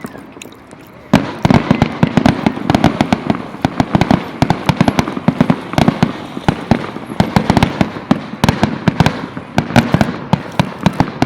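Fireworks going off in a dense, rapid barrage of bangs and crackles, starting suddenly about a second in after a brief lull.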